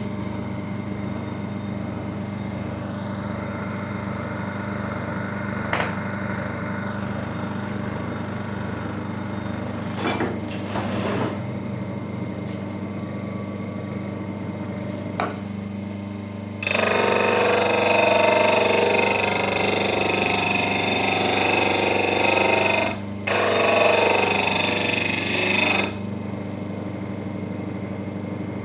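Home-made disc sander driven by a washing-machine motor, running with a steady hum and a few clicks. A little past halfway it is put to work, grinding loudly against a piece for about nine seconds with a brief pause, then goes back to running free.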